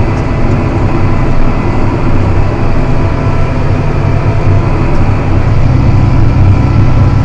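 John Deere 7280R tractor's six-cylinder diesel running steadily under load while pulling a plough.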